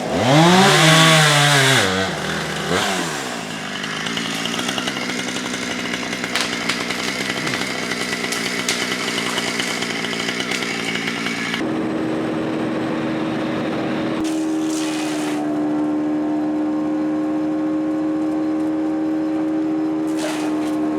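Chainsaw revving up and down, then running steadily. About twelve seconds in it gives way to a steadier, lower engine hum.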